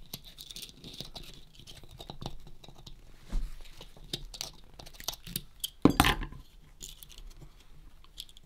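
Small metal parts of a periscope toy's spring spool being handled and fitted by hand: scattered light clicks, taps and scrapes, with one louder clack about six seconds in.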